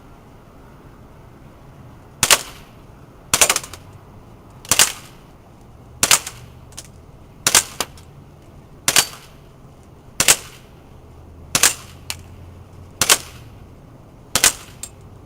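HFC M190 airsoft gas blowback pistol firing ten single shots at an even pace, about one every second and a half, each a sharp crack, with a few fainter ticks between some of them.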